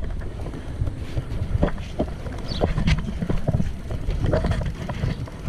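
Wind rumbling on the microphone while a bicycle rides over bumpy wet grass, with scattered knocks and rattles from the bike.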